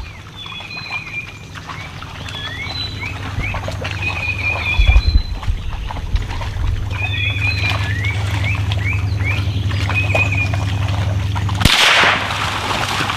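A bird sings the same short whistled phrases over and over above a low steady hum. Near the end a single sharp .22LR rifle shot cracks out, followed by a second or so of loud rushing and splashing as the hogs scatter through the water.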